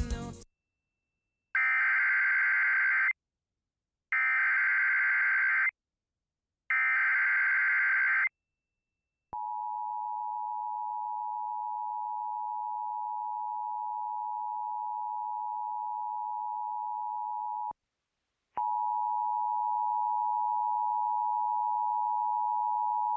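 Emergency Alert System signal: three short bursts of SAME digital header data, each about a second and a half long, then the two-tone EAS attention signal held steady for about eight seconds. After a brief pause a second steady tone starts and runs on; together they open a new alert, here a flash flood warning.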